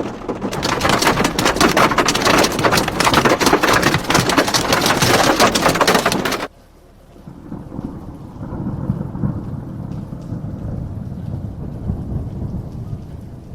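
Heavy hail pelting down: a loud, dense clatter of countless stones striking. It cuts off abruptly about halfway through and gives way to a quieter, muffled rumble of the storm.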